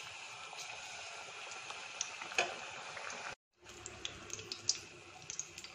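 Hot coconut oil sizzling in a wok as a spoonful of rava-maida appam batter is dropped in to deep-fry, a steady hiss with scattered sharp pops. The sound cuts out briefly about three and a half seconds in, then the sizzling resumes.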